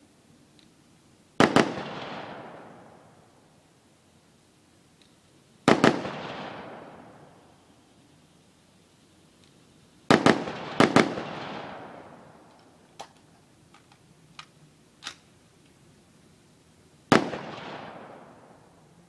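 AR-15 rifle shots on an open range: five loud reports, spaced a few seconds apart with two close together, each a sharp double crack followed by a long fading echo. A few much fainter pops come between the last two shots.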